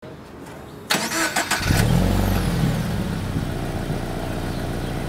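Subaru BRZ's 2.0-litre flat-four with the stock exhaust on a warm start. The starter cranks briefly about a second in, the engine catches with a short rise in revs, then settles into a steady idle.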